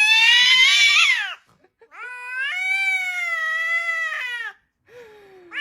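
Cat giving long drawn-out meows, three in a row. The middle one lasts about two and a half seconds, and the last falls in pitch.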